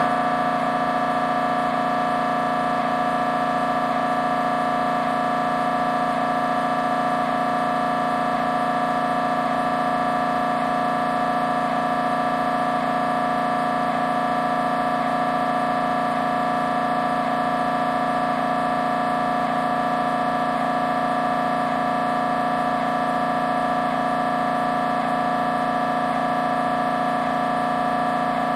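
Siemens Magnetom Symphony Maestro Class 1.5 T MRI scanner's gradient coils buzzing through a scan sequence: a loud, steady, many-toned electronic drone.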